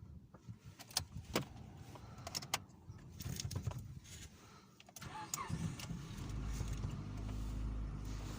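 A few clicks and rattles, then a Mitsubishi Lancer IX 1.6 engine is cranked and starts about five seconds in, settling into a steady idle on a cold start.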